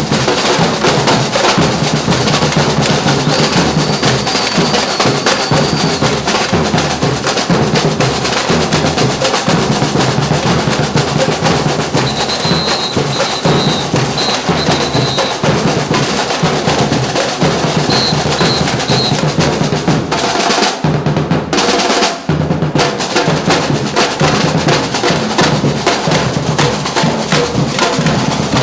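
Street drum band playing: many drums beating a fast, dense rhythm with snare rolls and bass drum, with a brief break in the snares about three-quarters of the way through.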